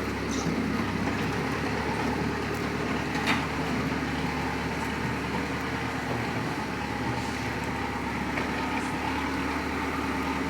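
Heavy truck engine running steadily at idle, a low, even drone.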